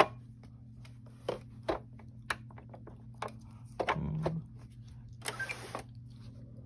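Power cable and plug being handled and pushed into an Xbox One power brick and console: a sharp click at the start, then scattered clicks, knocks and brief scrapes, over a steady low hum.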